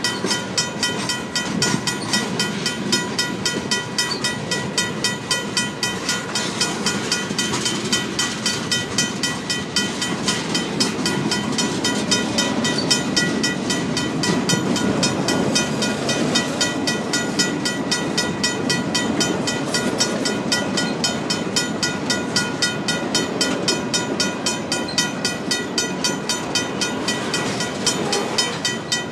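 Freight train of tank cars, boxcars and hopper cars rolling through a grade crossing, its wheels rumbling and clacking over the rails. Over it, the crossing signal's RACO mechanical bell rings with steady, rapid strikes.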